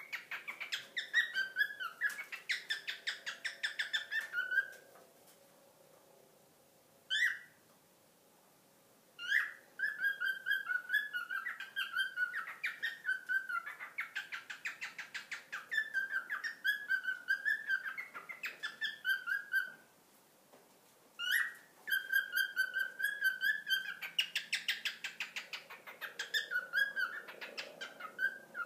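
Male cockatiel singing: long phrases of warbling whistles and fast trills, given while he spreads his wings in a display. The song breaks off twice, about five seconds in and again near twenty seconds, and a single short rising chirp comes in each pause.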